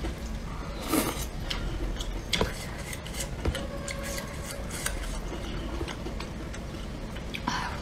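Close-up eating sounds: a noodle slurp about a second in, then chewing and sharp clicks of chopsticks against the plastic tray of a self-heating hot pot.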